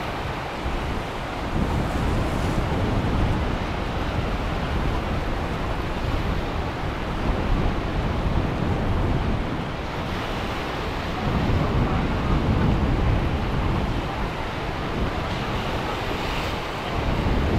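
Ocean surf with wind buffeting the microphone: a dense rushing rumble that swells louder every few seconds.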